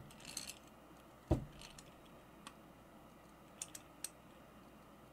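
Metal pliers clicking and ticking against a PL-259 coax connector's shell as it is screwed farther down onto the cable, with one louder knock about a second in and a few faint ticks later.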